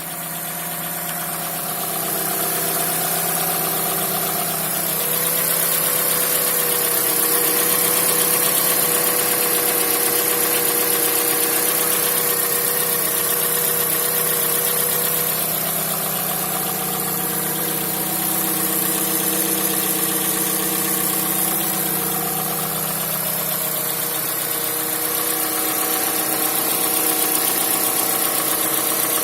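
Mazda CX-5 engine running steadily at idle with a knocking noise, the fault the owner is recording.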